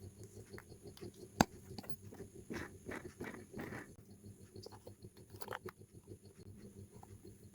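Faint irregular rustling and scraping handling noises, with one sharp click about a second and a half in and a few louder scrapes in the middle.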